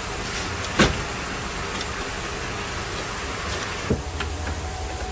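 Clicks of plastic dash trim and steering-column parts being handled, over a steady hiss and low hum. A sharp click comes about a second in and a softer knock near four seconds.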